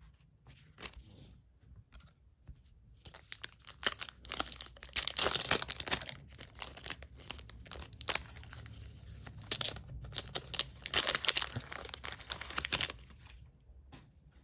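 Yu-Gi-Oh booster pack wrappers being torn open and crinkled by hand, in two loud spells of crackling, each lasting a couple of seconds.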